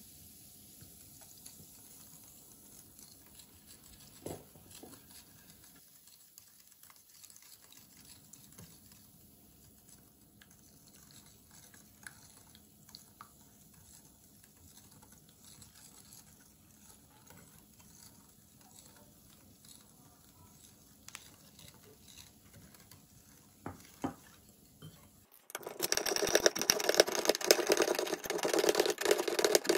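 Faint clicks of a wire whisk stirring in a ceramic bowl, then, near the end, a much louder hand-held can opener cutting around the lid of a steel can in a dense run of clicks.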